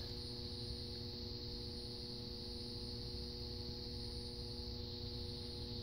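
Steady electrical hum from the ballast of a 250-watt high-pressure sodium streetlight running a 70-watt bulb: several even tones held together, with a faint steady hiss above them.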